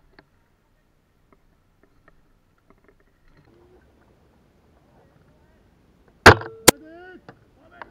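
A single shot from a JG BAR-10 spring-powered bolt-action airsoft sniper rifle: one very loud, sharp crack about six seconds in. A second sharp crack follows a split second later, with a short voice-like call between them.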